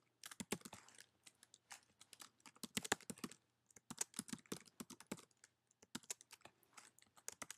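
Typing on a computer keyboard: irregular runs of quick keystrokes with a few short pauses between them.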